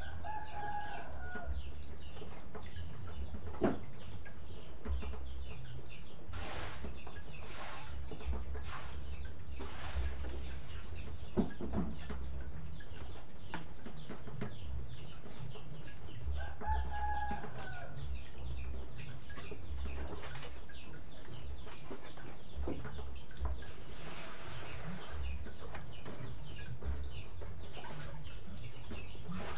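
Knife cutting meat on a wooden board, with a few sharp knocks. A chicken calls twice in the background, about half a second in and again about halfway through, over a steady low rumble.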